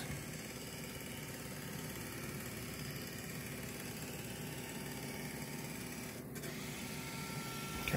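Canon LiDE 210 flatbed scanner's carriage motor running steadily as it drives the scan head across a page during a scan.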